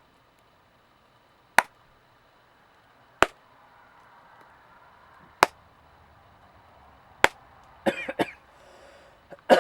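Four sharp single hand claps, about two seconds apart, each dying away at once. Between them is a faint hiss that swells as the camera's automatic gain turns up in the quiet. Near the end there are a couple of short voice-like sounds.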